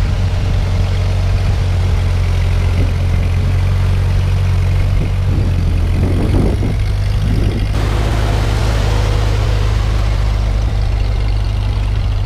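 1948 Ford 8N tractor's four-cylinder flathead engine running steadily as the tractor drives close past, dragging a back blade through the dirt.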